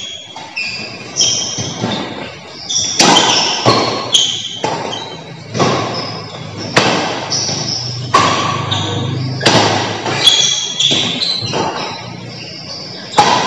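A badminton rally: rackets strike the shuttlecock in sharp cracks roughly once a second, each ringing on in the echoing hall, with short high squeaks between the hits.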